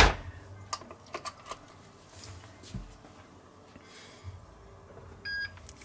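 A sharp knock at the start and a few light clicks, then near the end a short electronic beep from a Tefal OptiGrill Elite contact grill as it is switched on.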